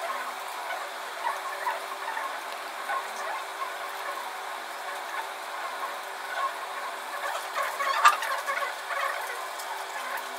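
Plastic stylus nib scratching and tapping across a pen display's screen in short irregular strokes over a faint steady hum, with one sharp tap about eight seconds in.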